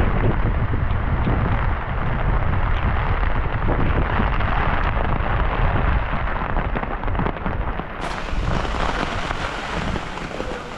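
Typhoon wind buffeting the microphone in a loud, deep rumble, with heavy rain hissing behind it; it eases slightly near the end.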